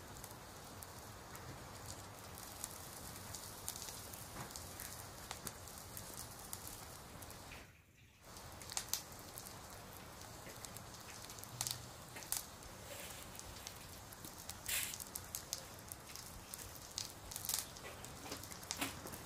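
Cooking fire crackling in a brick-sided stove: a steady low hiss with frequent sharp pops and snaps. The sound briefly drops away about eight seconds in.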